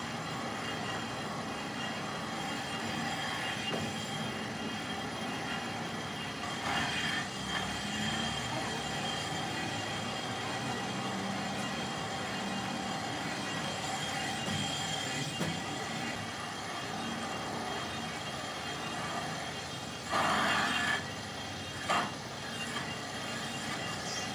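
A metalworking machine running steadily with a high metallic whine over a grinding noise. There is a louder burst about twenty seconds in and a sharp knock just after.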